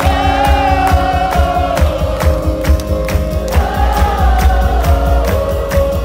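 Live rock band playing, with a steady drumbeat and heavy bass under voices singing long held notes that glide up and down.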